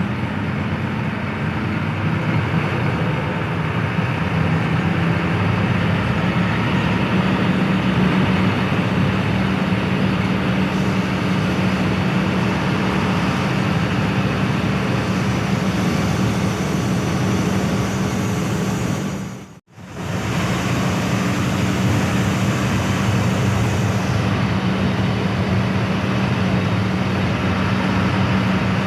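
Hino AK8 bus's front-mounted diesel engine running steadily under way, a constant low hum over road noise. The sound cuts out for a split second about two-thirds of the way through.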